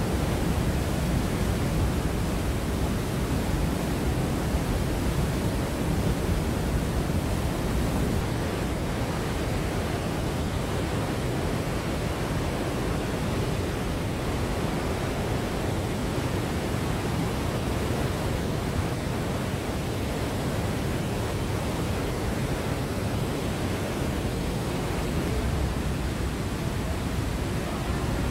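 Glacier meltwater of Trümmelbach Falls rushing and falling through a narrow rock gorge: a steady, deep rush of water with no let-up.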